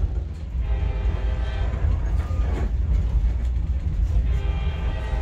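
Passenger train running with a steady low rumble. Pitched tones sound over it twice, about a second in and again near the end.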